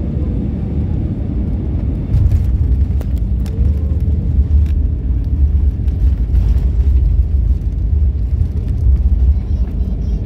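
Cabin noise of an Airbus A320-family airliner rolling on the ground after landing: a heavy, steady low rumble from the wheels on the tarmac and the engines, louder from about two seconds in, with a few short knocks and rattles.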